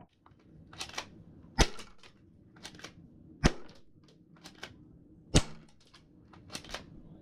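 Airsoft gun shots: a series of sharp snaps, the loudest about two seconds apart, with lighter clicks in between.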